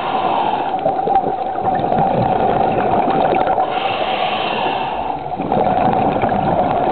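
Scuba regulator exhaust bubbles gurgling and crackling, heard underwater, with a steady hum underneath.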